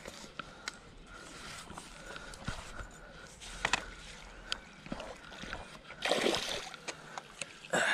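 A hooked pike thrashing and splashing at the water's surface as it is drawn into a landing net, with small splashes and ticks before a loud burst of splashing about six seconds in and another just at the end.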